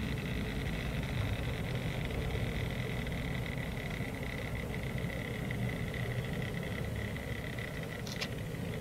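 Model Stanier 8F steam locomotive and its freight train running slowly along the layout track: a steady high motor whine over the low rumble of wheels on rail, with a brief sharp click near the end.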